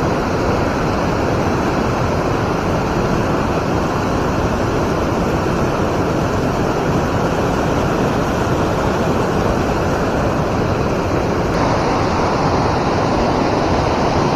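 Steady rush of water pouring over a river spillway.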